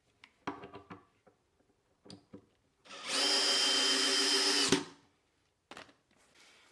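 Electric drill run for about two seconds at a steady speed, then stopped suddenly, with a few knocks of handling before it and light clicks after.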